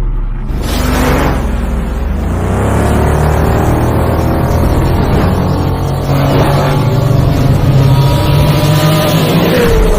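Kawasaki KLR 650's single-cylinder engine running while riding, loud and steady, its pitch rising and falling several times with the throttle and easing down near the end.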